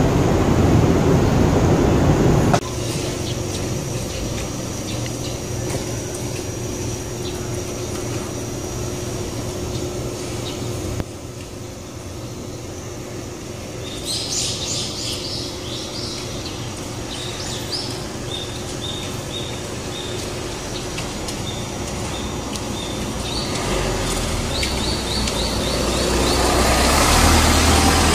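Outdoor background of steady traffic hum, with small birds chirping in quick repeated runs from about halfway through.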